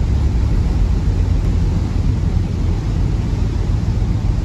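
Motor boat under way at low speed: a steady low engine rumble with a rushing noise over it.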